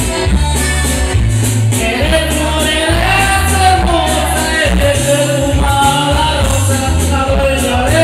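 A man singing into a microphone over amplified backing music, with a repeating bass line and regular cymbal strokes; the sung melody comes in strongly about two seconds in and holds long notes.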